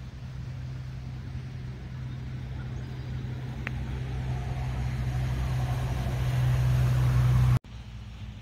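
A road vehicle approaching: a low engine hum with tyre noise that grows steadily louder, then cuts off abruptly near the end.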